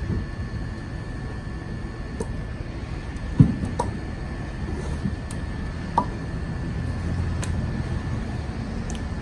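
Split hickory firewood logs being handled and stacked: a few scattered wooden knocks as logs clunk together, the loudest about three and a half seconds in, over a steady low rumble.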